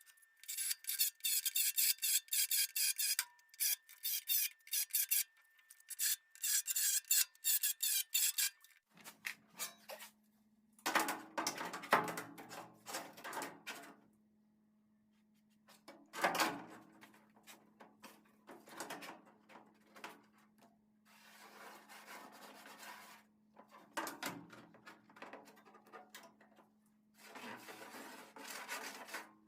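Drill with a Blair spot weld cutter grinding out spot welds in the cab's sheet steel: a long stretch of dense rasping to begin with, then several shorter bursts a second or two long.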